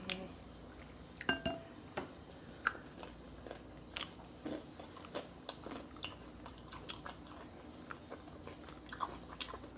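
A person chewing seafood-boil food, with scattered short wet mouth clicks and smacks.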